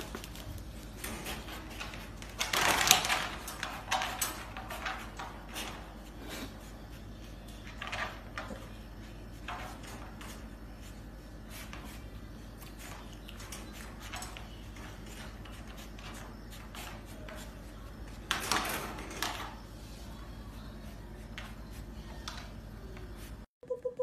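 Clicks, knocks and rattling as piglets scramble about in a wire dog crate, trotters on the plastic tray and bodies bumping the wire. There is a longer burst of clatter about three seconds in and another about three-quarters of the way through.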